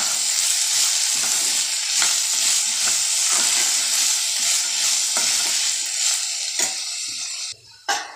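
Green peas, chopped green capsicum and onion sizzling in hot oil in a metal pan while being stirred with a steel spoon, with scraping against the pan through the sizzle. The sizzling drops away abruptly near the end.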